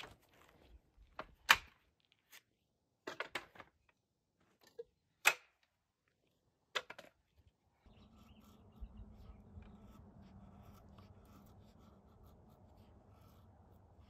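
A handful of sharp wooden knocks and clacks as folding wooden camp chairs and firewood are handled. About eight seconds in, these give way to quiet scraping as a knife shaves thin curls off a split of firewood, carving a feather stick for fire-lighting.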